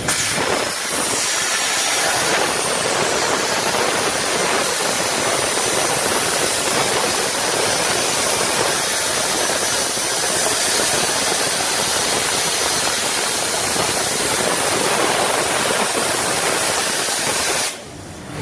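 Loud steady hissing from the Soitaab Omniatech plate fabrication machine at work, stopping suddenly near the end.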